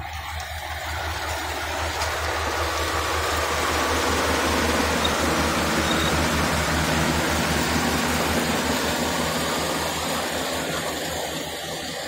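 Daedong DSC62 rice combine harvester running as it cuts through the standing crop: a steady low engine hum under a rushing mechanical noise. It grows louder over the first few seconds as the machine comes right up close, then eases a little near the end.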